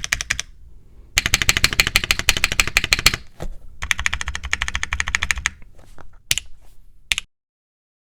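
Typing on a Tomo SE mechanical keyboard with lubed Gateron Root Beer Float tactile switches, a PC plate, O-ring mount and GMK keycaps: rapid runs of keystrokes in three bursts with brief pauses between them, then a few single presses before it stops about seven seconds in.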